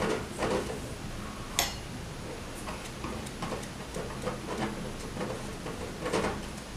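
Flat brush spreading white glue over an MDF box: faint, irregular brush strokes and light ticks, with one sharper click about a second and a half in.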